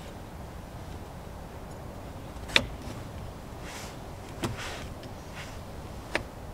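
Kitchen knife cutting an eggplant on a wooden cutting board: three sharp knocks of the blade meeting the board, the first and loudest about two and a half seconds in, then two more almost two seconds apart, with soft slicing swishes between them.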